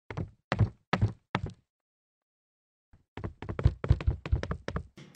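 Footsteps on concrete stairs: four slow, evenly spaced steps, then after a pause of about a second and a half a quick run of hurried steps.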